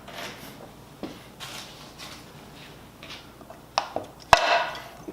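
Light clicks and clinks of metal parts and tools being handled during cleaning, with one sharp knock about four seconds in.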